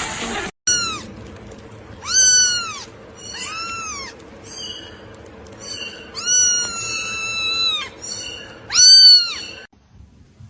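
A domestic cat meowing over and over, about six meows each rising and falling in pitch; one in the middle is long and drawn out, and the loudest comes near the end.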